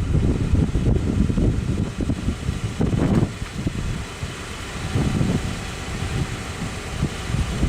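Wind buffeting the microphone: an uneven low rumble that rises and falls, with a louder surge about three seconds in. No siren is sounding yet.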